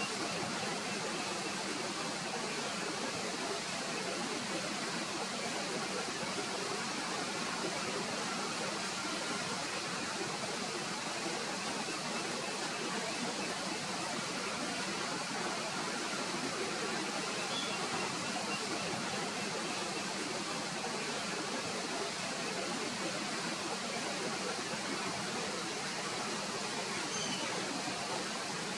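Steady rush of flowing water, an even hiss that does not change. A few faint, short high chirps sound barely above it.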